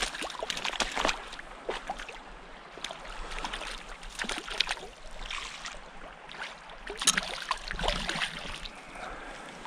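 Hooked brown trout splashing at the surface of a shallow stream as it is played in, a run of irregular splashes over running water, the biggest ones near the end.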